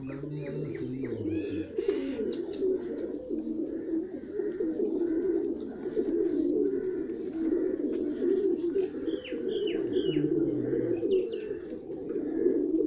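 A flock of Pakistani old-breed domestic pigeons cooing, many coos overlapping into a steady chorus with deeper single coos rising and falling through it. A few short, high chirps sound over it near the end.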